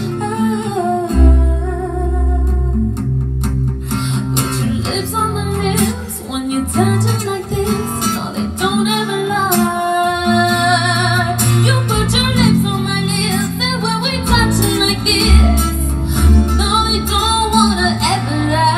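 A woman singing a pop song live into a microphone, with sliding, drawn-out vocal lines over instrumental backing with a deep bass.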